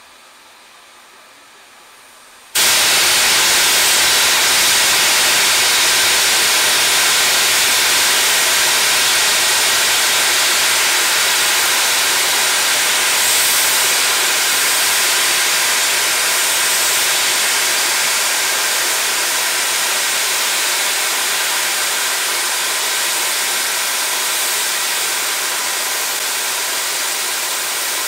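SR Schools class 4-4-0 No. 926 'Repton' blowing off steam: a loud, steady hiss that starts suddenly about two and a half seconds in and eases slightly towards the end.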